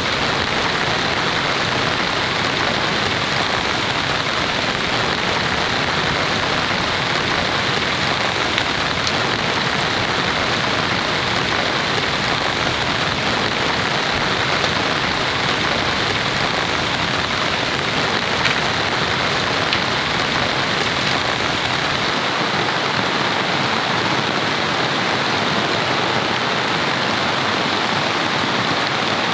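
Rain falling steadily, a dense even hiss with no letup.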